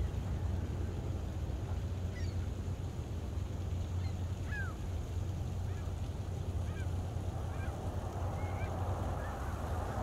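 Gulls giving short, scattered, faint calls over a steady low rumble, with a broader hiss building near the end.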